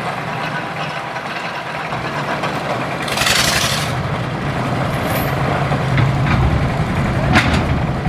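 Engine of a steel ferry barge running steadily, its stern propeller churning the water, with the low rumble growing a little stronger in the last couple of seconds. A short hissing burst comes about three seconds in, and a sharp knock near the end.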